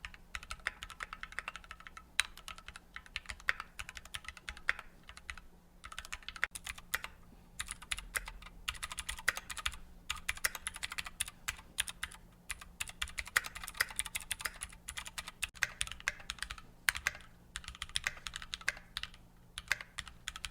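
Typing on Keychron Q-series mechanical keyboards with lubed Gateron switches, red, blue and brown, played in turn to compare their keystroke sounds. Fast runs of keystroke clicks with a few short pauses between stretches.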